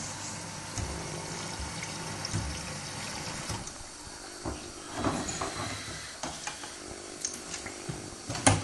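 Samsung WW80J5555FWEU washing machine running a Delicates 40°C cycle: water runs and sloshes in the drum over a steady low hum. Short splashes and knocks come throughout, with one louder knock near the end.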